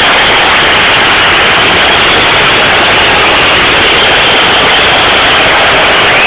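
Football crowd in the stands making a dense, steady roar, so loud that it overloads the recording into a hiss-like wall of noise.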